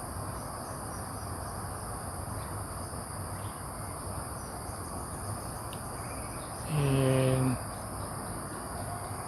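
Steady, high-pitched insect chorus shrilling on and on over a low outdoor hiss. A man's single drawn-out "and" comes about seven seconds in.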